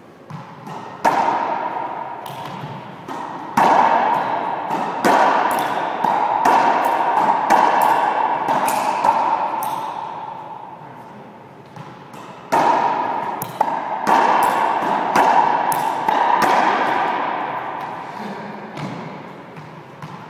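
Racquetball rally: sharp cracks of the racquet striking the ball and the ball smacking the court walls, each hit ringing in the enclosed court. The hits come about a second apart in two runs, the second starting about twelve seconds in.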